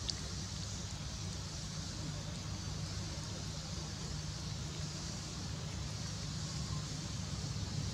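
Steady low hum and hiss of background noise, with one sharp click right at the start.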